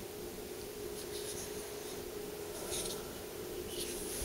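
Quiet handling noise: three brief, hissy rustles or scrapes, about one, two and a half and four seconds in, over a steady low hum.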